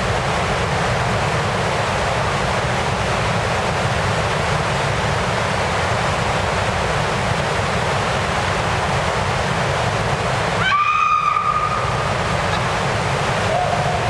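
Steady roar of Box Canyon Falls, a waterfall pounding inside a narrow rock canyon. About three-quarters of the way through the roar briefly drops out and a short, high, steady whistle-like tone sounds for about a second.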